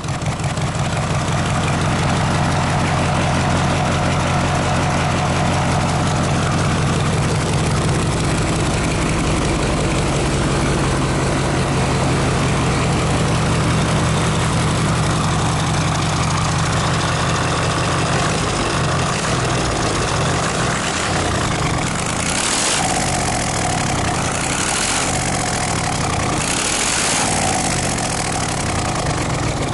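Freshly rebuilt Mercedes-Benz OM442 V8 diesel engine running on its first test run, idling smoothly and steadily. In the last third its speed rises and falls several times.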